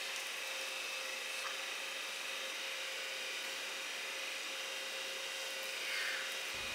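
Faint steady hiss with a thin, constant hum: room tone, with no distinct carving sounds.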